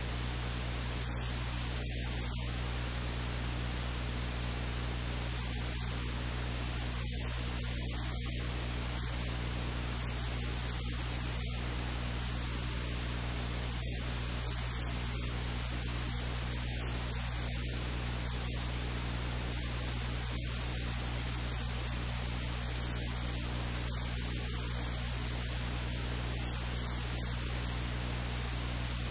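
Steady hiss of static with a low electrical hum underneath, unchanging throughout.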